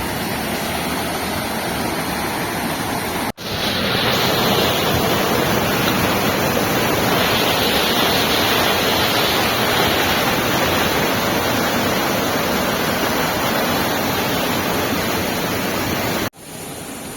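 Steady rushing roar of a waterfall. It breaks off abruptly about three seconds in and comes back louder, then breaks off again near the end and returns quieter.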